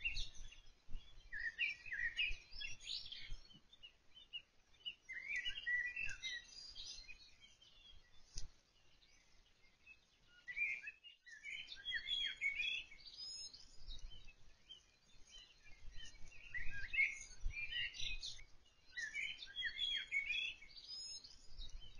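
A songbird singing in repeated phrases of chirps and warbles, each lasting two to three seconds with short pauses between, over a faint low rumble. A single sharp click about eight seconds in.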